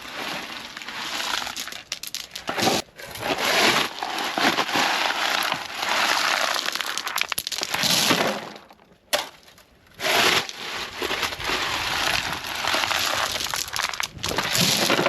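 Loose gravel crunching and scraping in long, irregular stretches as it is worked by hand, with short breaks about three and nine seconds in.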